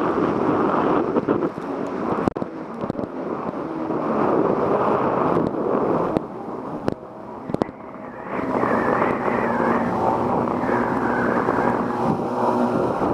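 Wind buffeting the microphone over the hiss of water, with a few sharp knocks. From about eight seconds in, a jet ski's engine is heard running steadily.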